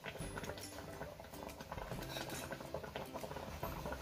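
Faint, irregular crackling and bubbling from thick carrot halwa cooking in a steel kadai while melted ghee is poured into it in a thin stream.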